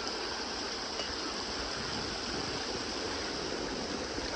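Creek water rushing steadily through flooded brush and over debris: the outflow from a breached beaver dam draining the pond.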